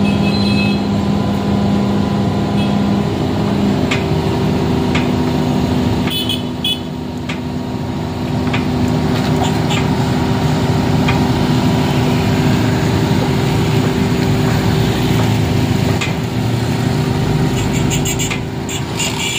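Diesel engine of a Hitachi hydraulic excavator running steadily under load while it holds up a truck, its note changing about four seconds in. Motorcycles pass, and short high horn-like tones sound around six seconds in and near the end.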